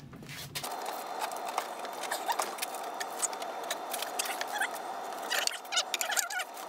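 Scattered small clicks, taps and scrapes over a steady hiss: a wooden form being handled and its top panel lifted off the cast concrete.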